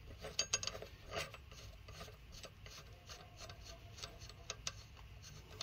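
Lug nut being spun by hand onto a new wheel stud, with faint, irregular small metallic clicks and scraping as the nut and washers turn on the threads.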